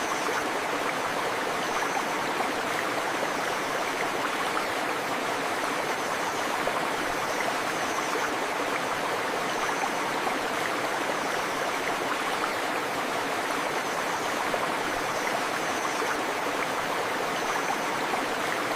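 Steady rush of a flowing river, with rain mixed in. A faint high chirp recurs about every two seconds.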